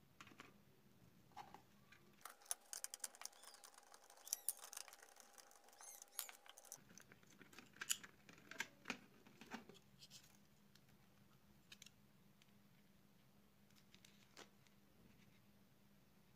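Faint scattered clicks and light taps of hands handling the plastic case, circuit board and loudspeaker of a disassembled Amstrad E-mailer Plus, busiest in the first half and thinning out after that.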